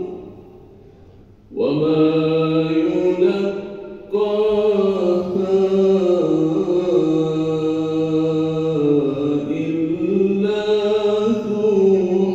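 A man reciting the Quran in the melodic, drawn-out style of an aşr-ı şerîf through a handheld microphone, holding long, wavering notes that echo in the hall. After a pause of about a second and a half he starts a new phrase, breaks briefly about four seconds in, then sings one long phrase on to the end.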